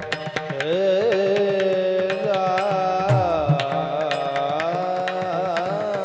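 A male kirtan singer holding a long, high sung line with slow waving ornaments, to a steady beat of clicking hand cymbals (taal), with low hand-drum strokes near the start and again near the end.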